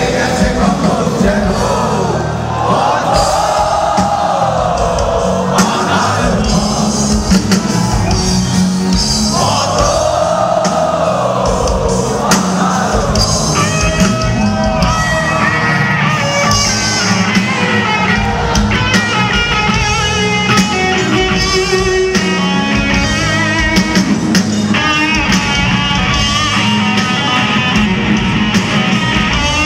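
Live rock band playing over a steady drum and bass backing. A singer holds two long, wordless wailing notes in the first twelve seconds, and then a fast electric guitar lead takes over.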